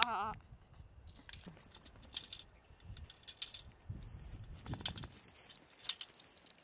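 Plastic Connect Four discs clicking as they are picked up and dropped into the upright grid: a handful of sharp, separate clicks about a second apart. A laugh trails off at the very start.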